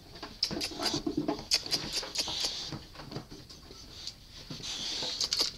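Boxer dog sniffing and snuffling right up against the microphone, in short hissy swells, with scattered clicks and rustles and a brief low grunt about a second in.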